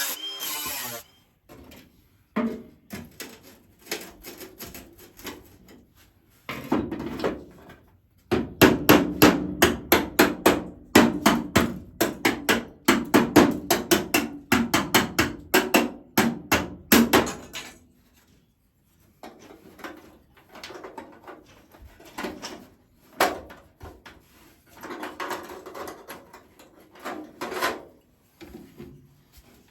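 Hammer blows on steel sheet metal in irregular runs, quickening to a fast, steady series of several strikes a second in the middle, then a brief pause and slower, scattered blows. Typical of hammering sheet steel to shape or flatten repair pieces.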